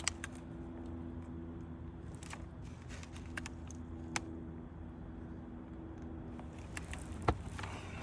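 A steady low mechanical hum under scattered clicks and knocks from handling wooden roof shakes, the sharpest knocks at the start, about four seconds in and about seven seconds in.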